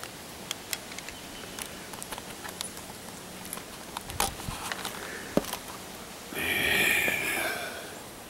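Handling noise from a camcorder being swung through tree branches: scattered clicks and small knocks, a few dull thumps, then a louder scraping rustle lasting about a second and a half near the end.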